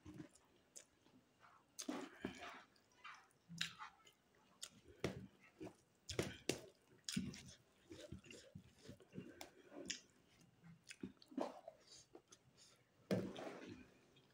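A person chewing a mouthful of rice and pork curry with wet mouth smacks and clicks at an irregular pace, one louder smack near the end, along with the soft sound of fingers mixing rice on a steel plate.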